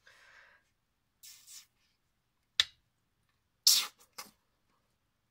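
Handling noises of a plastic acrylic-paint bottle being uncapped over a ceramic plate: soft rustles, a sharp click about two and a half seconds in, then a brief louder scrape and a small click near the end.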